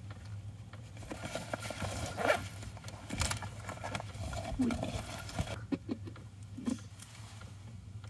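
Handling noises as a small projector is unpacked from a soft pouch and its cables are plugged in: scattered rustles, clicks and knocks over a steady low hum.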